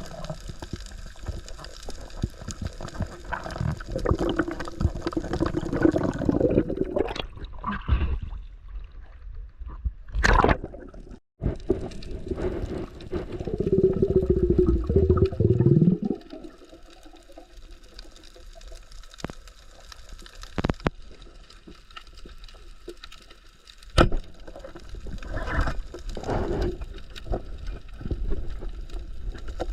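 Water gurgling and sloshing around the microphone, with a few sharp knocks.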